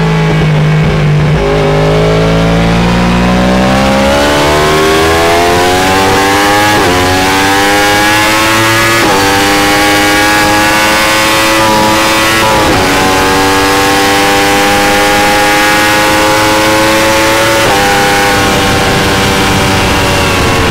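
Yamaha R1M's crossplane inline-four at speed through an Akrapovic exhaust. The engine note climbs and changes pitch abruptly at gear changes, about four times.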